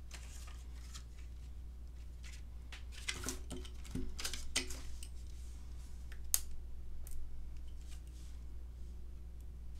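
Scattered light clicks and taps of self-adhesive silver sparkle gems being picked off their clear plastic sheet and pressed onto a paper card with a pick tool, bunched about three to four and a half seconds in. A steady low hum runs underneath.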